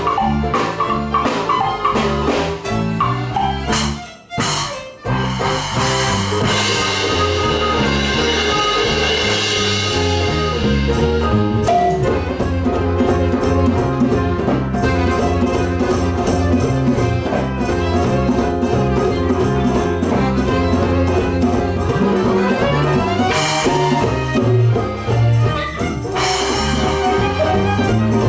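Live band playing an upbeat instrumental passage with a steady beat. It drops out briefly about four seconds in, then comes back in full.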